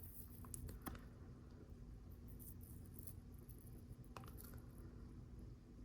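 Near silence: room tone with a few faint clicks from small plastic LEGO parts being handled while a sticker is repositioned.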